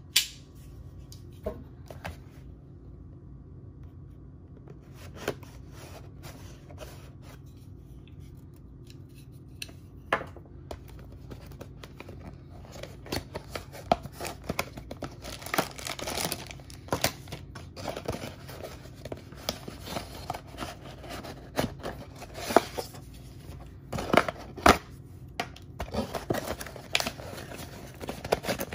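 Cardboard toy box handled and turned in the hands: a few isolated clicks at first, then from about ten seconds in a busy run of rustling, scraping and sharp clicks of the cardboard.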